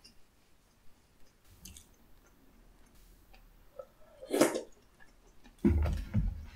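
Close-miked eating sounds: quiet mouth clicks and chewing, then a loud wet slurping bite about four seconds in as a saucy piece of tteokbokki goes into the mouth. A run of dull low thumps follows near the end.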